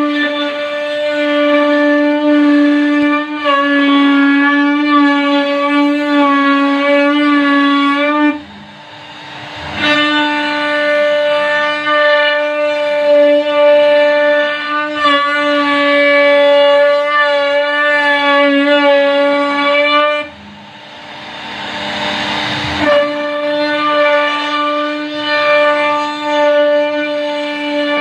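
CNC router spindle carving a wooden door panel, giving a loud steady high whine. The whine breaks off twice for a second or two, about eight and twenty seconds in, and a rushing noise fills each gap.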